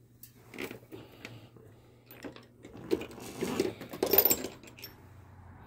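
Metal tools clinking and rattling as sockets are rummaged through, busiest and loudest about three to four seconds in.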